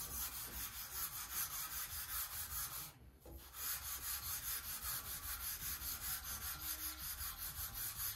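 Sanding block rubbed back and forth over a thin balsa sheet, a fast, even scratching of about three strokes a second with a brief pause about three seconds in. The glued-up balsa wing skin is being pre-sanded smooth on its finished side before it goes onto the wing.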